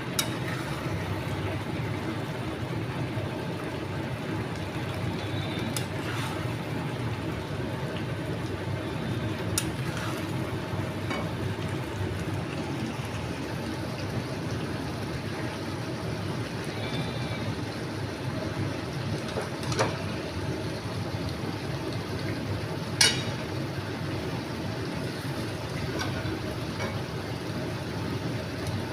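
Steady low background noise with a few sharp clinks of a metal utensil against a pan or serving dish, the loudest about twenty and twenty-three seconds in.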